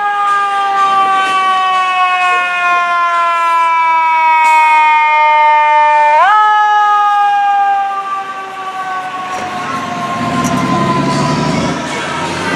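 FDNY Ferrara fire engine's siren sounding as it passes, its pitch sliding slowly down, jumping up sharply about halfway through, then sliding down again and fading. A low rumble comes in near the end.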